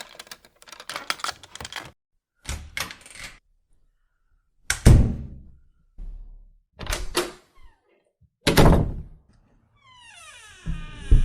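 A run of door sounds: handle and latch clicks and rattles, then a door shutting with a heavy thud about five seconds in and another about eight and a half seconds in. Near the end a falling, squeaky sound begins.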